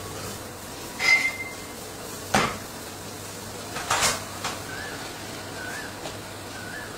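Workshop clatter of metal tools and a truck tyre casing being handled: a handful of sharp clanks and knocks, the first with a brief metallic ring, spread over a steady background hum.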